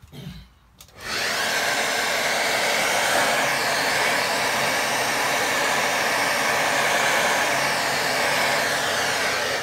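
Handheld hair dryer switched on about a second in and blowing steadily, drying wet watercolour paint.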